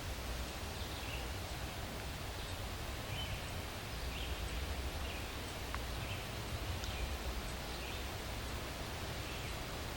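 Outdoor nature ambience: a steady low rumble with faint high chirps recurring about once a second.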